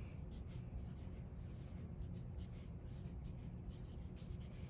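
Pencil lead scratching on lined notebook paper in a quick run of short strokes as numerals are written one after another, over a low steady hum.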